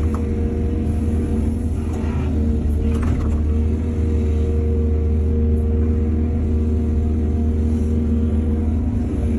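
Excavator's diesel engine running steadily with a deep drone, with two brief hissing noises about two and three seconds in.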